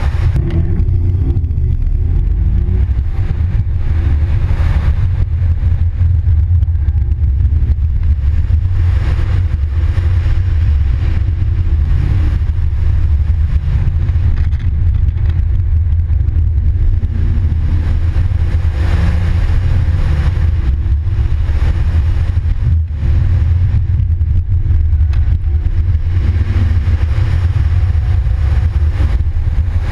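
Subaru WRX's turbocharged flat-four engine working hard through an autocross course, its revs rising and falling through the corners, over a deep, steady rumble.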